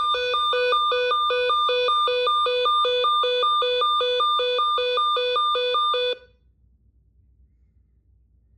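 Electronic fire alarm sounder giving a two-tone hi-lo alarm, switching rapidly between a low and a high tone several times a second, then cutting off suddenly about six seconds in.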